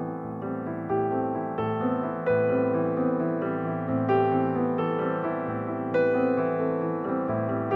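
Slow, gentle piano music: notes or chords struck about once a second and left to ring and fade.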